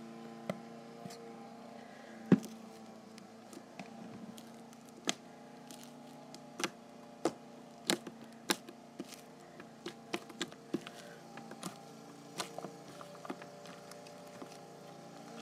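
Slime being kneaded and stretched by hand, giving irregular sharp clicks and snaps, over the steady hum of a lawnmower engine coming in through an open window.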